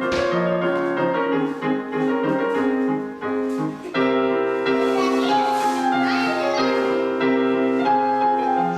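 Piano music, with chords and notes held and changing steadily throughout.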